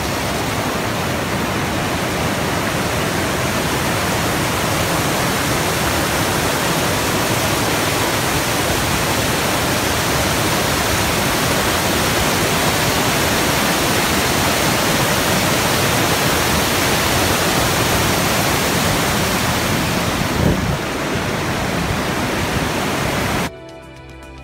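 Waterfall: white water rushing over rock ledges in a loud, steady, unbroken wash of noise. About a second before the end it cuts off suddenly and soft music takes over.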